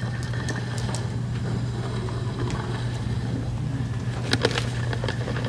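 Room tone with a steady low hum, and a few light knocks and clicks about four seconds in.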